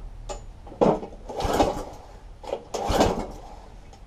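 Recoil starter of a Tecumseh lawnmower engine pulled several times in quick succession, each pull a short burst as the engine turns over without catching.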